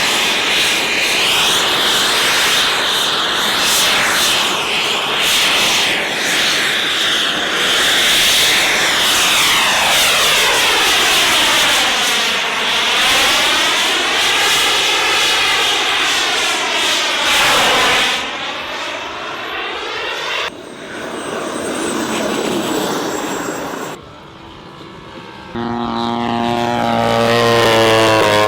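Radio-controlled model aircraft engines flying past, loud and steady, with the tone sweeping up and down as the planes pass. After several abrupt cuts to quieter passages, an engine revs up near the end with its pitch rising.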